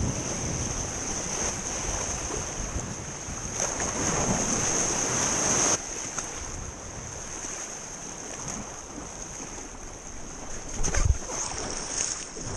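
Sea surf washing and splashing around a rock close to the microphone, with wind on the mic. A louder rush of water swells about three and a half seconds in and cuts off suddenly near six seconds, and a single thump comes near the end.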